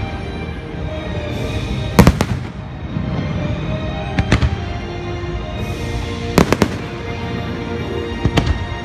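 Aerial fireworks shells bursting with sharp bangs every two seconds or so, some in quick doubles, over the fireworks show's music soundtrack.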